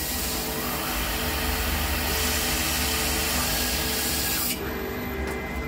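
Retrofitted fiber laser cutting metal plate: a steady hiss of assist gas blowing through the cut at the nozzle, over the low hum of the machine. The hiss cuts off about four and a half seconds in, leaving the hum and a thin steady whine.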